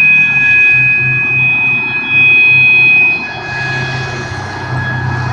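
System Sensor MA/SS-24 fire alarm horn sounding a steady, continuous 800 Hz tone, the sign that the building's fire alarm system is in alarm. Its level drops a little about three seconds in, over a low rumble underneath.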